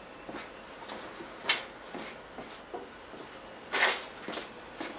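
Light handling noises from ductwork parts being picked up and handled: scattered small clicks and knocks, a sharper click about a second and a half in, and a brief louder scrape or rustle near four seconds.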